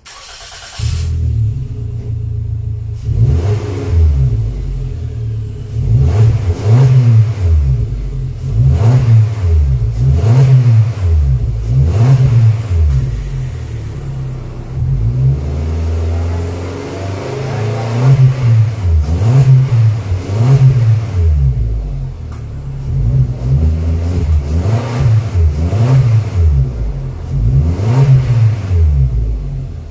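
Suzuki Jimny JB74's 1.5-litre four-cylinder engine being revved again and again through an aftermarket GReddy dual-exit exhaust. Quick blips rise and fall about once a second, with a few seconds of steady idle about halfway through.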